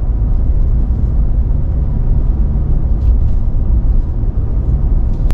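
Steady low rumble of road and engine noise inside the cab of a 2023 Nissan Frontier PRO-4X driving along while towing a trailer.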